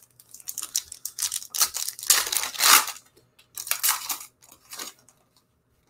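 The foil wrapper of a basketball trading-card pack is torn open by hand and crinkled in a run of irregular tearing rustles, loudest about two to three seconds in. It stops about a second before the end.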